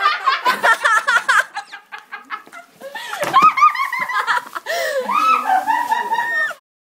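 People laughing, with high-pitched giggles and squealing bursts of laughter; it cuts off suddenly near the end.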